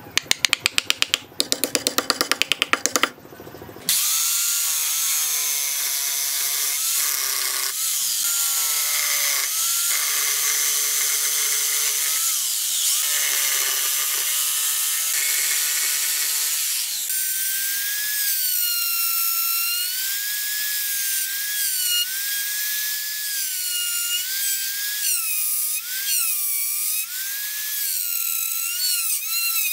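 A fast run of sharp hammer taps for about three seconds. Then a Makita jigsaw cuts wood, its motor pitch sagging and rising as the blade bites. From about the middle on, a handheld rotary tool with a carving bit gives a high whine that wavers as it grinds into the wood.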